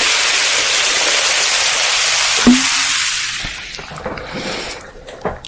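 A steady hiss that fades away between three and four seconds in, with a single sharp click about two and a half seconds in.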